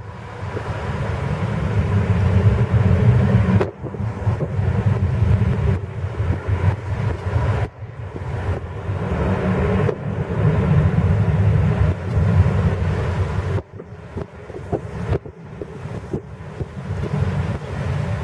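Boeing 737 jet engines running at takeoff power as the airliner starts its takeoff roll: a loud, steady jet rumble with a faint whine. Wind buffets the microphone, so the rumble swells and drops out suddenly several times.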